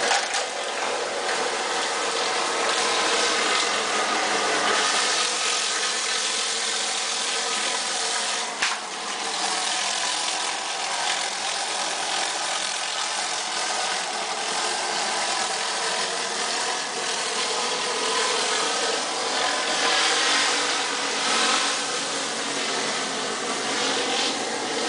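Engine-driven pressure washer running steadily while a rotary surface cleaner sprays the brick pavers, the engine's pitch wavering slightly. A single sharp click about nine seconds in.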